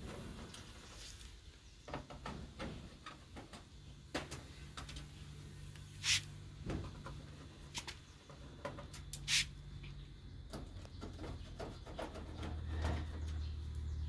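Scattered clicks, taps and scrapes of hands and a screwdriver working on a Konica Minolta Bizhub 751 copier's screws and panels as it is opened up. Two sharper clicks come about six and nine seconds in, over a low steady hum.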